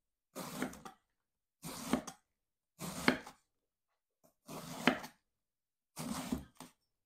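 Chef's knife slicing a pointed cabbage into thin strips on a wooden cutting board: five slow, evenly spaced strokes, each a short cut through the leaves ending with the blade tapping the board.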